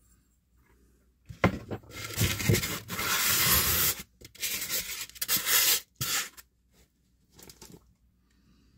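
Packaging being rummaged through and handled: a run of rustling and scraping, loudest about three to four seconds in, with a few short knocks, then quieter rustles near the end.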